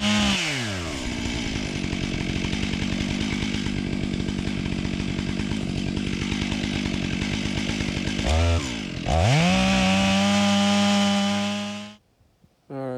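Two-stroke chainsaw engine: the revs fall away at the start, then it idles with a fast, even pulse for about seven seconds. After a quick blip of the throttle it revs up and holds a steady high pitch for about three seconds, then stops abruptly near the end.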